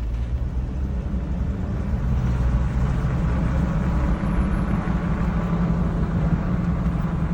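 Jeep Wrangler's 3.8-litre V6 running steadily with no misfires after a repaired crank sensor connector, its sound building over the first two seconds or so and then holding even.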